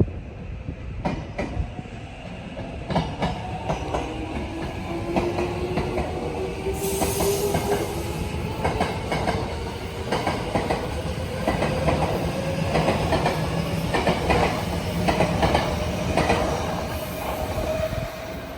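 Tobu Railway electric train pulling away, its motor whine rising steadily in pitch as it gathers speed, with wheels knocking over the rail joints about once a second.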